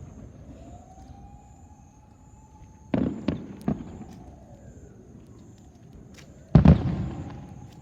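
Fireworks display: a faint rising whistle as a shell climbs, then three sharp bangs about three seconds in, and a louder boom about six and a half seconds in, each bang trailing off in echo. Another rising whistle follows the last boom.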